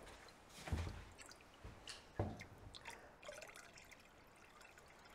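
Seawater being swirled and poured off a bowl of seagrass seed and debris into a bucket, with two louder splashes about one and two seconds in, followed by small drips and trickles. This is seed panning: the muck and floating, non-viable seeds wash out while the heavier viable seeds stay in the bowl.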